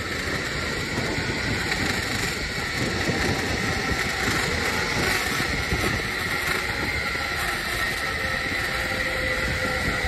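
Zipline trolley's pulleys running along the steel cable: a steady rolling whir with a sustained high whine, and a lower tone that slowly falls in pitch near the end.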